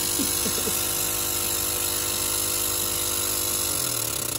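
Fuel injector test bench running with a steady mechanical hum; near the end it turns into a fast, even pulsing.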